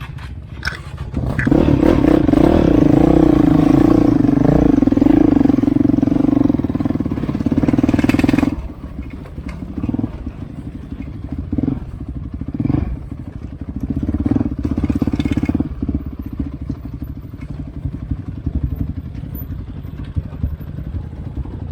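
Off-road trail motorcycle engine running under load, loud and steady for about seven seconds, then dropping back to a lower running note with a few short rises in revs.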